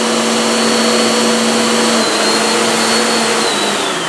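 Full-size vacuum cleaner running with a steady motor hum and high whine. Near the end the whine starts to fall in pitch as the motor slows, with the power cutting in and out because the cord is being tugged.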